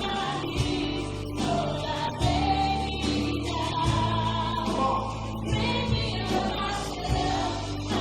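Gospel-style church worship music: a group of singers over instrumental backing with sustained bass notes that change every second or two.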